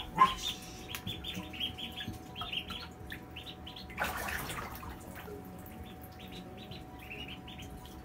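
Ducklings peeping: a fast, continuous run of short high chirps. A single puppy bark comes right at the start, and a brief rush of noise about four seconds in.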